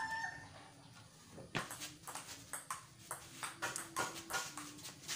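A table tennis rally: the celluloid ball clicks in quick alternation off the paddles and the table top, starting about a second and a half in and going on at several hits a second.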